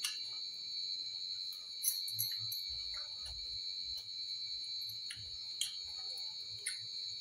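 A steady high-pitched drone, with scattered light clicks and taps as a pakora is picked up and broken by hand over steel bowls.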